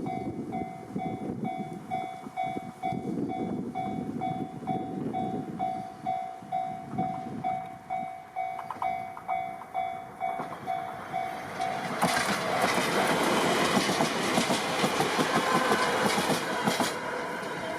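Japanese level-crossing warning bell ringing about twice a second over gusting wind noise on the microphone. About twelve seconds in it is swamped by the loud rush and wheel clatter of a train passing over the crossing: a DE10 diesel locomotive with the Maya 34 track-inspection car.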